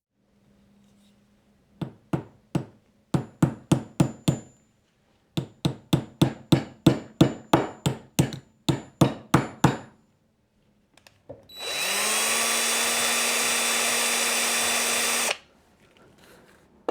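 A run of sharp knocks, about two dozen, some coming several a second, then a small electric power tool spins up and runs steadily for about three and a half seconds before stopping abruptly.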